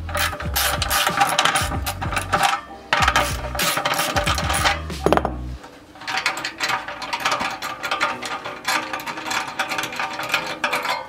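Background music whose bass drops out about halfway through, over the clicking of a socket ratchet wrench turning a bolt on an exhaust muffler.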